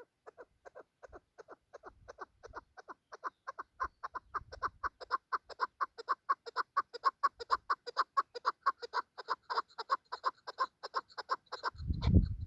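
Chukar partridge giving its rapid rallying call, a long run of short 'chuk' notes about six a second that builds in loudness. It breaks off near the end into a loud low rustling noise.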